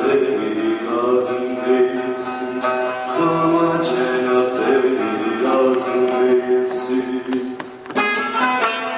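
A bağlama (long-necked Turkish saz) being played, with a man's voice singing long held notes over it. About eight seconds in the sound turns suddenly denser and brighter.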